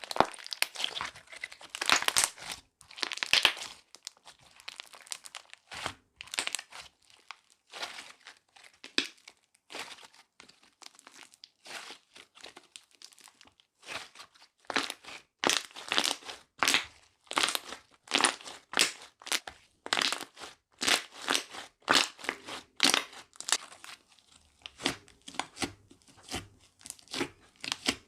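A soft clay-mixed slime being squeezed, stretched and folded by hand, giving a steady run of short crackling pops, about one to two a second.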